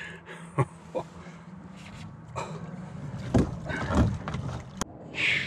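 Knocks and handling noises against a small fishing boat as a large rainbow trout is leaned over the side to be released, over a faint steady hum, with a short hiss near the end.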